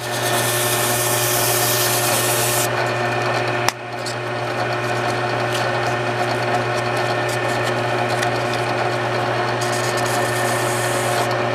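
Drill press running, spinning a wooden awl handle while 220-grit sandpaper is held against it, a steady motor hum under the rasp of paper on wood. The brightest part of the hiss eases a little under three seconds in, and a sharp click comes about a second later.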